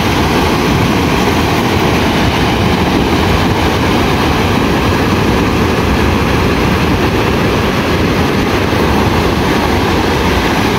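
Ocean surf breaking and washing in the shallows: a loud, steady rush of noise that sets in suddenly and does not let up.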